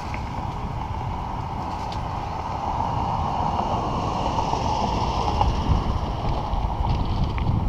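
Wind buffeting the camera microphone with a rough low rumble from riding a bicycle along a concrete sidewalk, growing slowly louder toward the end.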